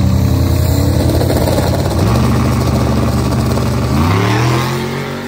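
A small-tire drag race car's engine pulling hard through the gears. The pitch drops and climbs again about two seconds in and again about four seconds in, then the sound fades away.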